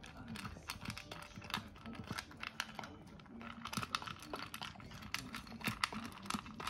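Kaninchen dachshund eating dry kibble from a stainless-steel bowl: quick, irregular crunching and clicking as it chews and the pellets knock against the metal.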